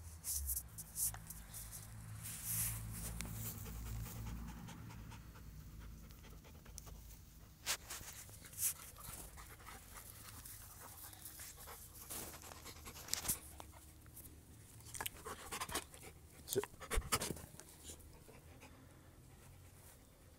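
Dog panting, with scattered sharp clicks and knocks through it and a low rumble in the first few seconds.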